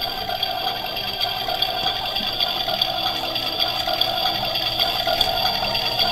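Electronic toy oven playing its cooking sound effect through a small speaker: a steady, buzzy electronic tone.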